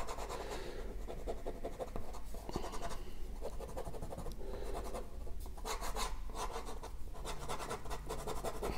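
Ballpoint pen scratching across drawing paper in quick, irregular sketching strokes.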